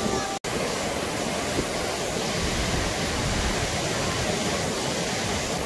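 The Marmore Falls (Cascata delle Marmore): a large volume of water pouring down the falls and cascades in a steady, dense rush. There is a brief gap just after the start.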